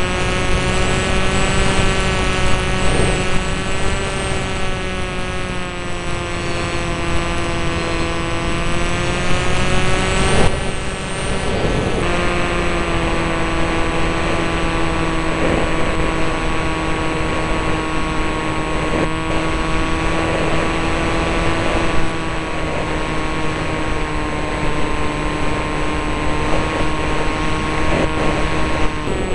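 Steady engine drone of an aircraft heard from on board, a constant hum of evenly spaced tones over a rushing noise. The pitch drops a little about twelve seconds in.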